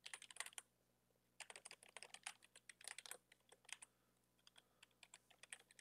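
Computer keyboard typing in quick runs of keystrokes, with a short pause about a second in and sparser, lighter taps near the end.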